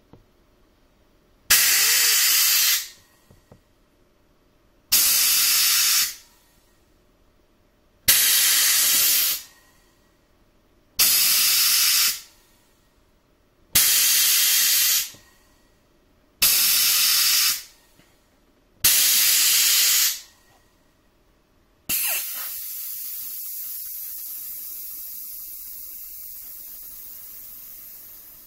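Compressed air hissing in seven short bursts about every three seconds as a stainless-steel spring-return pneumatic actuator is cycled, each burst starting with a sharp click. Near the end a longer hiss sets in and slowly fades.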